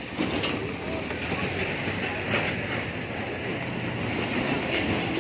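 Steady rumble and rush of vehicle noise, continuous and fairly loud.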